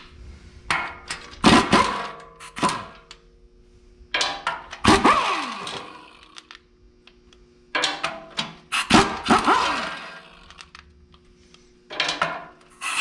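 Pneumatic impact wrench backing out the bolts that hold the PTO shield on a tractor. It runs in several bursts of one to two seconds, and the pitch drops at the end of the longer ones.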